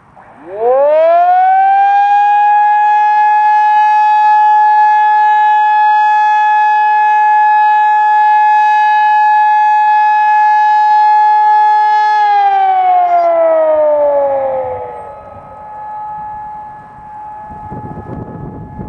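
Hörmann ECN 2400 electronic civil-defence siren sounding its single steady test tone. It winds up in about a second and a half, holds one loud tone for about ten seconds, then winds down and fades. A fainter held tone lingers near the end.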